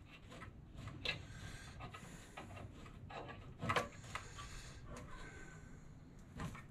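Hands tightening the table lock knob of an unpowered scroll saw and handling the machine: faint rubbing and small clicks, with a few light knocks about a second in, midway and near the end.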